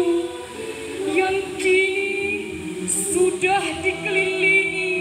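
Many voices singing together in long, held notes, a group of students singing in unison.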